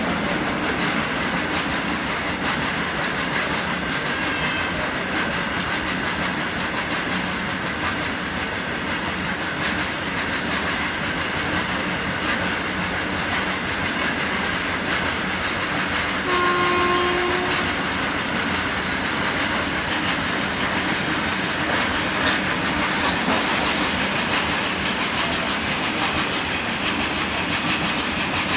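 Loaded open freight wagons of a goods train rolling past on the rails: a steady rumble with wheel clatter over the rail joints. A brief pitched hoot sounds about sixteen seconds in.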